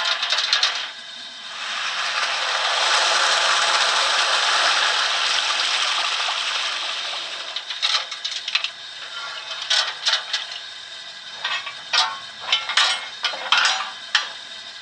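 Model steam locomotive sound decoder playing a recorded tender water fill through its small loudspeaker. A rush of water swells up about a second in, holds, and fades away after several seconds. Scattered metallic clanks and clicks follow.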